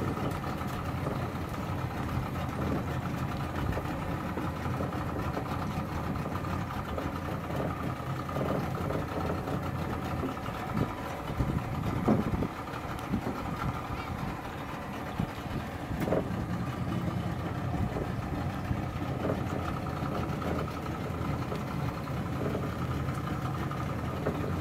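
Small boat's outboard motor running steadily at idle-like low speed.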